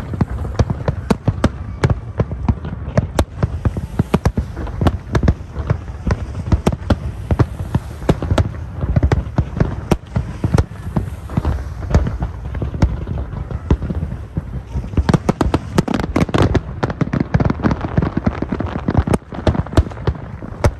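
Large fireworks display: aerial shells bursting in rapid, overlapping succession, many sharp bangs a second, growing denser near the end.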